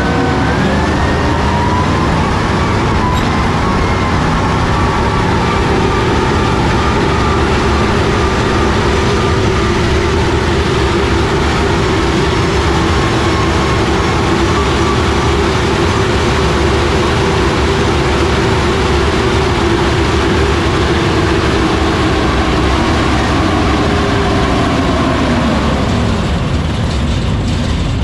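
1941 Universal Carrier under way: its Ford flathead V8 and tracked running gear running at a steady speed, a loud mix of mechanical noise with a steady whine. Near the end the whine falls in pitch as the carrier slows.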